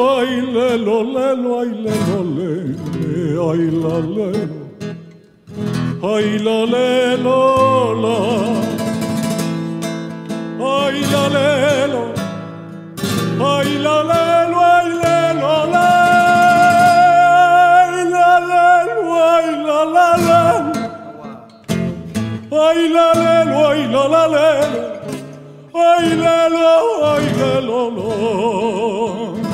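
Flamenco song: a man's voice singing long, wavering, ornamented phrases over acoustic guitar, with short pauses between the phrases.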